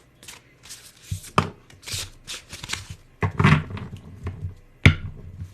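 A deck of tarot cards being handled and shuffled: irregular rustling and sliding of cards with a few soft thumps, and one sharp tap about five seconds in.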